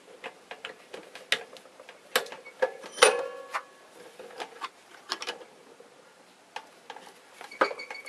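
Metal parts of a Yamaha NMAX front fork and the tool being fitted to it, clicking and clinking irregularly as they are handled. A sharp ringing metal clink comes about three seconds in.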